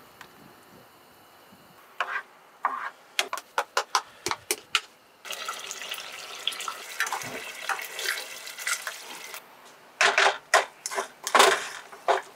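Thick sauce bubbling in a pot, with sharp pops and then a steady crackling hiss. Near the end a spatula scrapes and knocks against the saucepan as rice is stirred.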